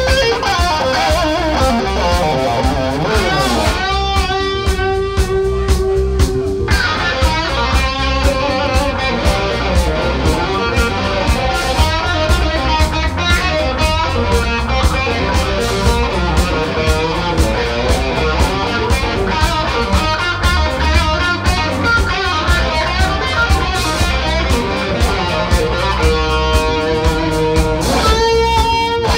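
Live electric blues band playing an instrumental passage: two electric guitars over bass guitar and drums, with the lead guitar holding long bent notes with vibrato, once about four seconds in and again near the end.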